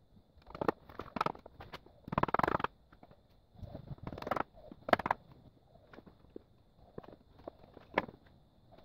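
A hammer knocking on a wooden box held in pipe clamps, in irregular knocks with a quick flurry about two seconds in and sharp single knocks around five and eight seconds.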